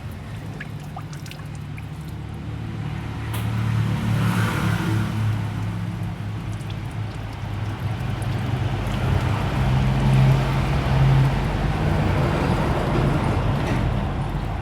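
Nissan YD25DDTi diesel engine running steadily while its cooling system is bled of trapped air.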